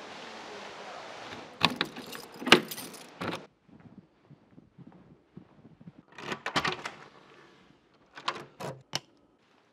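A ring of keys jangling and clicking, ending in a key pushed into and turned in a door lock. The loudest clatter of sharp clicks and knocks comes about a second and a half in, after a steady rushing noise.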